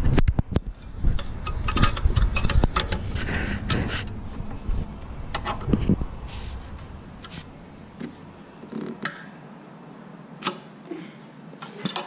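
Irregular metallic clicks and clinks of a gear wrench being fitted onto the alternator's 12 mm bolt and worked to loosen it, with a low rubbing rumble in the first half.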